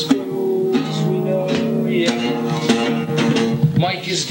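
Guitar music: notes and chords picked one after another, each one ringing on.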